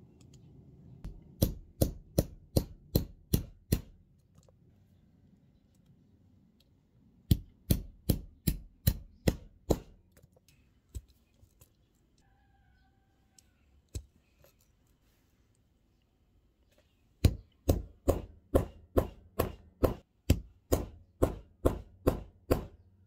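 Hammer strikes on a rivet-setting punch, setting copper rivets and burrs through a leather strap on a steel block: three runs of sharp metallic taps, about three a second, the last and longest run near the end.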